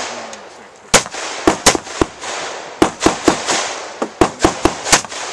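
Rifle gunfire: about eleven shots fired in quick strings of two to four, each a sharp crack with a short echo.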